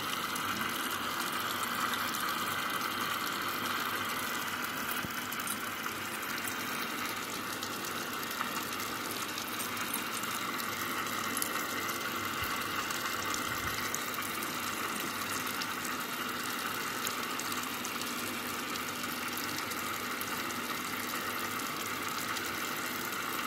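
Tap water running steadily into a lab sink, driving a water-jet aspirator that pulls the vacuum for a Büchner funnel filtration.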